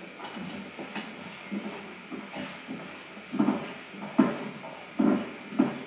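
Footsteps on a wooden stage floor: soft shuffles early on, then four heavy steps at a walking pace in the second half.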